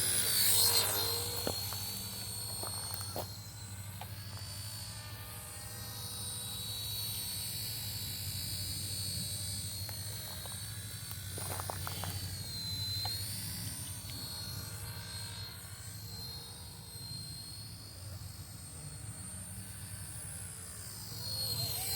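Radio-controlled helicopter flying: a steady high-pitched motor and rotor whine that wavers up and down in pitch as it manoeuvres, over a low hum.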